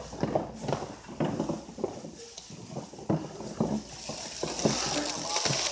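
Clear plastic stretch wrap pulled off a hand roll around stacked cardboard boxes: a dense hiss that starts about three and a half seconds in and builds to the end. Before it come scattered knocks and scrapes of cardboard boxes being handled, with faint voices in the hall.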